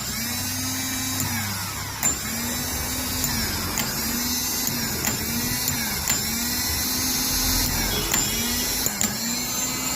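Vehicle self-starter motor running with a continuous whirring, grinding noise. Its pitch dips and recovers about once a second, with a sharp click on most cycles. This is the abnormal starter noise being shown as a fault.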